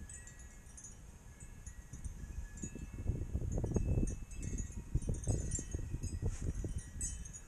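Irregular rustling and knocking from hands and pliers working a hose clamp under a car, loudest in the middle few seconds. Faint high tinkling runs in the background.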